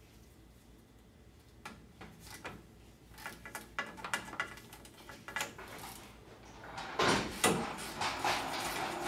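Metal clinks and knocks as the rear end of a Ford E350's drive shaft is handled into place at the rear axle flange, followed from about seven seconds in by a louder, continuous metallic scraping and rubbing.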